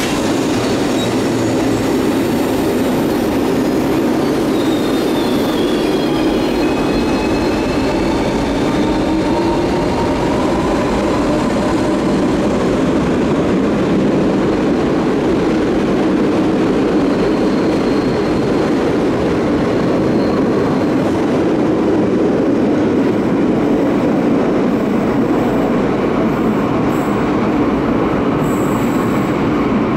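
Cercanías electric commuter train running on the rails: a loud, steady rumble, with faint high wheel-squeal tones gliding down in pitch a few seconds in.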